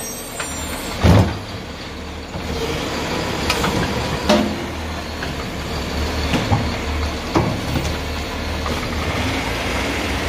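Heil Python automated side-loader garbage truck running while its hydraulic arm lifts a cart, dumps it into the hopper and sets it back down. A steady low engine drone runs under a few sharp metal bangs, the loudest about a second in.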